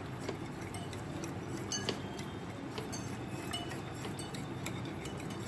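Wire whisk clinking and scraping against a ceramic bowl while stirring a thick batter, with scattered light clicks.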